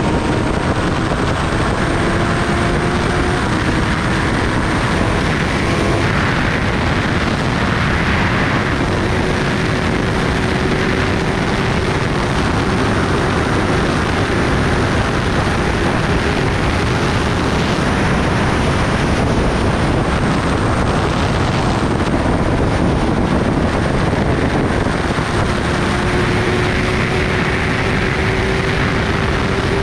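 Kawasaki Ninja ZX-10R's inline-four engine running steadily at highway speed under a loud, even rush of wind and road noise, its note edging slowly higher.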